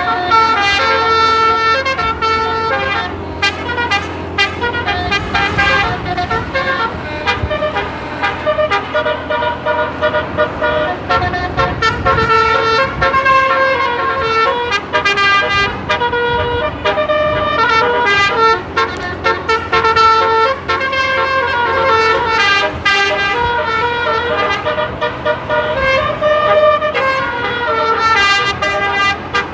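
Bus telolet musical air horn, an 18-note 'basuri' set, playing a melody without a break: held notes stepping up and down in pitch. A low rumble runs underneath.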